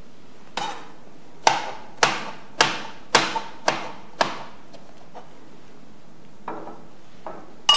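Kitchen knife chopping soft peeled eggplant into chunks, the blade knocking down onto a plastic cutting board about twice a second for a run of seven strokes. After a pause, two softer cuts come near the end.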